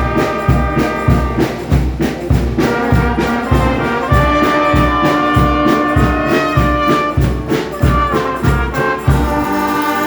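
Brass band playing, trumpets and trombones holding long notes over a steady beat about twice a second. The beat stops near the end and the band holds a final chord.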